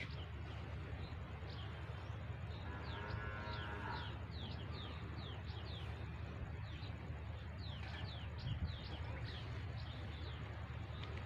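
Small birds chirping, many short falling whistles, with one drawn-out bleating call about three seconds in, over a steady low rumble.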